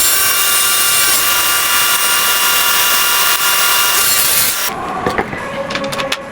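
Woodworking power tool cutting wood: a steady motor whine over harsh cutting noise that stops abruptly about three-quarters of the way through, followed by a few light clicks and knocks.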